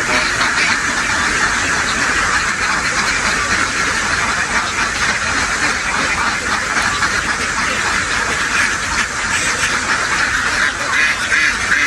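A large flock of farmed ducks quacking all at once, the calls overlapping into one dense, steady chorus.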